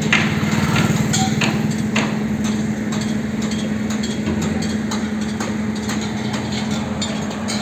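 An engine running with a steady low hum, with scattered short knocks and clanks from construction work on a concrete building frame.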